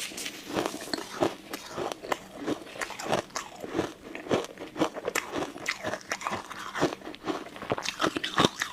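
Ice cubes being bitten and chewed, a dense, irregular run of crisp cracks and crunches.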